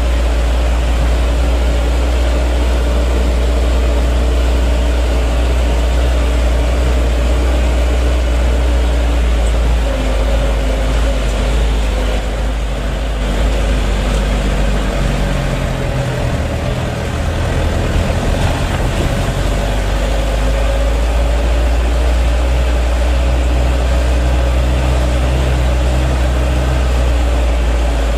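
Isuzu Elf microbus's diesel engine running on the road, heard from inside the cabin as a steady low drone. About halfway through, the engine note changes pitch and dips for a few seconds, then settles back.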